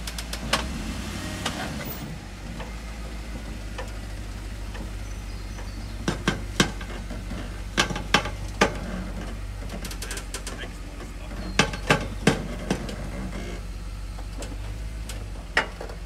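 Lifted Hummer H3's engine running at a low, steady idle as it crawls over rough ground, with sharp cracks and knocks that come mostly in clusters of two or three.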